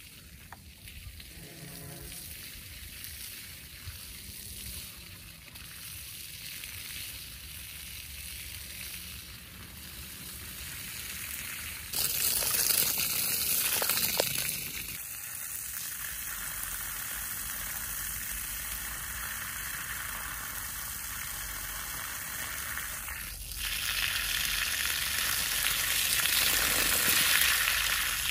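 A steady sizzling hiss that steps up sharply about twelve seconds in, settles a few seconds later, and rises again past twenty-three seconds.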